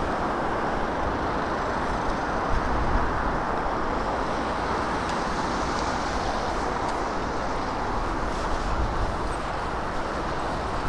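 Steady traffic noise with a low, gusting wind rumble on the microphone.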